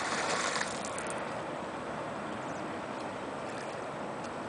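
The tail of a splash as a thrown magnet lands in the river, fading within the first half second. After that comes a steady, even outdoor background hiss.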